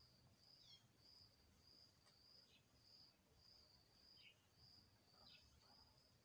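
Near silence, with an insect chirping faintly in an even, repeating high pulse a little under twice a second and a few short faint chirps in between.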